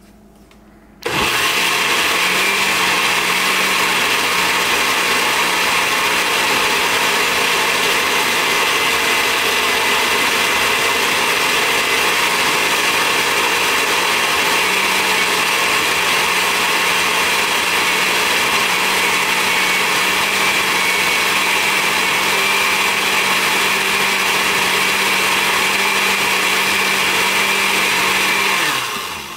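Countertop blender motor switched on about a second in, running steadily for nearly half a minute as it purees chilies with vinegar, then switched off near the end, its pitch falling as it winds down.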